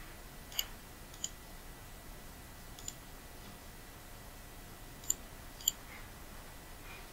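Computer mouse button clicked five times at uneven intervals, over a faint steady room hiss.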